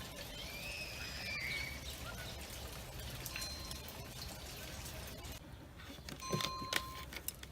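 A bird's call gliding in pitch about half a second in. Near the end come several sharp taps and a short electronic beep from the touchscreen training system.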